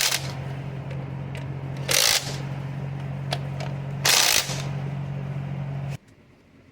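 2011 Toyota Tacoma engine running steadily, with three short loud hissing bursts about two seconds apart, while it is tested for a misfire with the suspect cylinder 4 fuel injector swapped into cylinder 3. The engine sound cuts off suddenly about six seconds in.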